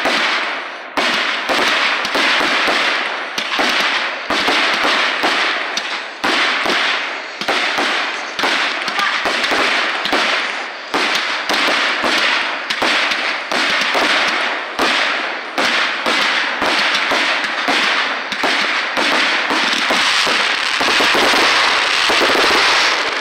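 Aerial fireworks going off in rapid succession, a sharp bang every half second to a second. Near the end the bangs merge into a dense, steady crackle.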